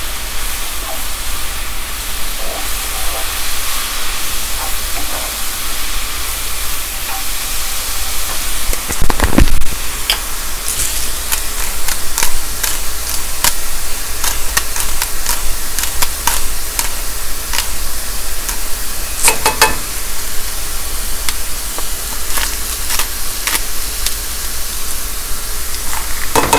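Sliced mushrooms sizzling and frying in butter in a skillet while being stirred, a steady hiss throughout. Sharp clicks and taps come thick in the second half, with a louder knock about nine seconds in.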